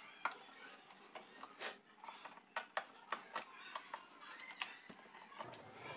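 Faint, irregular small clicks and light scraping of hand-handled clock parts: the nuts holding a wall clock's glass cover being unscrewed.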